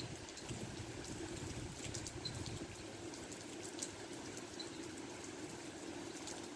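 Steady rain with scattered light crackles and ticks, and a short high chirp repeating about every two seconds.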